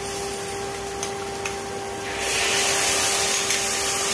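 Watery marinade hits hot oil, fried onions and spices in a pressure cooker and sets off a loud sizzle about two seconds in, after a few light scrapes of a spoon against the bowl. An induction cooktop hums steadily underneath.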